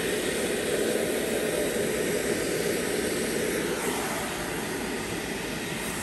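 Handheld electric hair dryer blowing a steady stream of air, easing off slightly about four seconds in.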